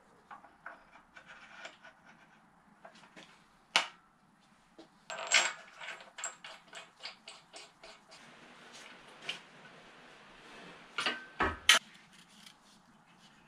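Light metallic clicks and clinks as a toothed cam belt pulley is handled and slid onto the crankshaft nose of an aluminium engine block, with a sharper click about four seconds in and a run of quick clinks a little later. A knock with more body comes near the end as the work moves to the rear of the block.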